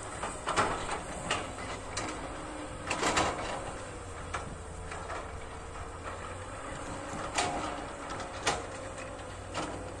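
SANY hydraulic excavator at work: a steady engine drone with a wavering whine, and sharp clanks and knocks every second or so from the arm and bucket as it drags earth.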